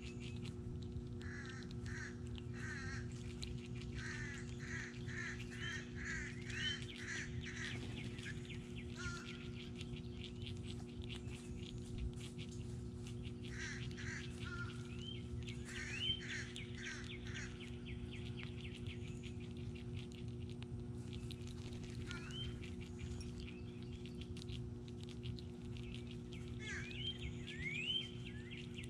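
Backyard birds calling: quick series of short, harsh notes, then several separate upward-sweeping calls, over a steady low hum.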